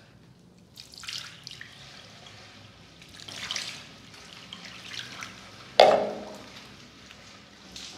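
Water scooped and poured from a plastic mug splashing and dripping into a ceramic washbasin in short bursts, with one sharp, loud knock about six seconds in.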